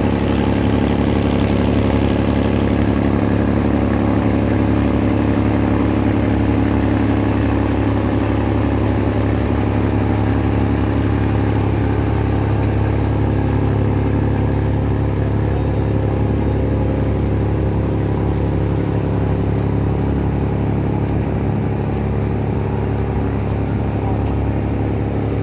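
An engine running steadily at an even speed, a constant low drone with a strong hum.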